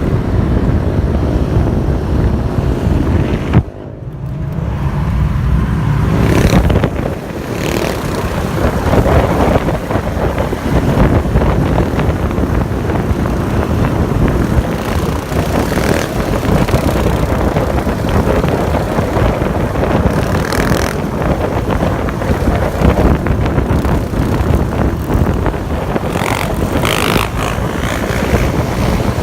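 A sport quad or motorcycle engine running under way, with heavy wind buffeting on the microphone. About four seconds in the throttle shuts off abruptly and the engine note falls away, then the engine and wind noise build back up.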